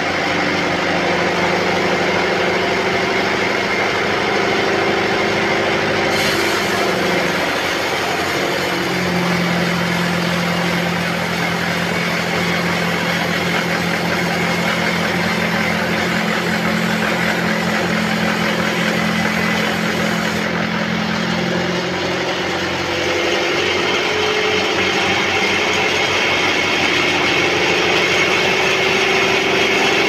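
Large sawmill band saw running and cutting through a teak log, a loud steady machine drone. Its hum drops lower about eight seconds in and rises again about two-thirds of the way through.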